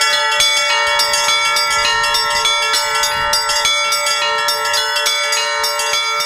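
Orthodox church bells from a small monastery belfry being rung in a continuous peal. Smaller bells are struck several times a second in a quick pattern over the steady ringing of the larger bells. It is the ringing that calls the monks to services.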